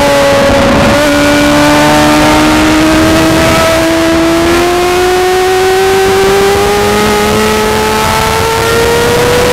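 Racing motorcycle's engine at high revs, heard on board with wind rushing past; its pitch climbs slowly and steadily without a gear change as the bike accelerates.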